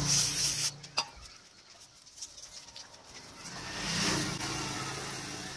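An engine running, loud at the start and cut off within the first second, then swelling again near the end and slowly fading. A single sharp click about a second in.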